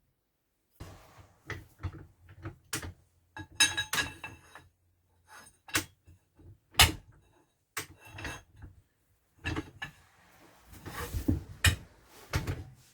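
Metal hand tools and clutch parts handled on a work surface: a string of separate clinks, clicks and knocks, some with a short metallic ring, the loudest about seven seconds in.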